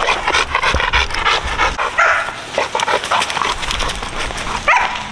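A dog barking in a rapid, excited run, with a high pitched yelp near the end.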